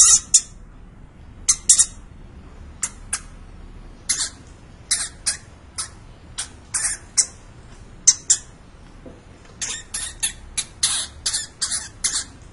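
Hamster squeaking: many short, high-pitched squeaks in irregular runs, some in quick pairs, coming thicker toward the end.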